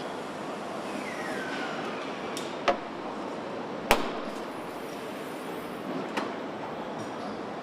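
Car assembly-line machinery: a steady factory hum with a few sharp metallic clanks, the loudest about four seconds in, and a short falling whine about a second in.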